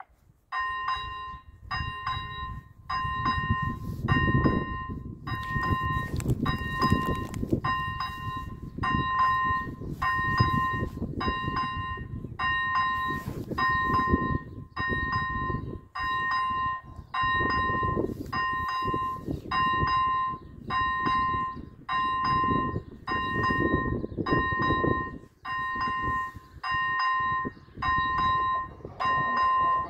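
Electronic level-crossing warning bell ringing in a steady repeating rhythm, starting about half a second in as the red lights begin flashing: the crossing has been activated for an approaching train.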